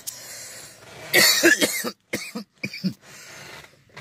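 A man coughing: a loud fit of coughs about a second in, then two or three shorter coughs.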